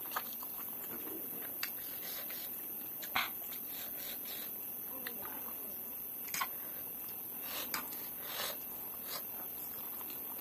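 Close-up eating sounds of spicy instant noodles: scattered short wet mouth clicks and smacks while chewing and slurping, over a steady faint hiss.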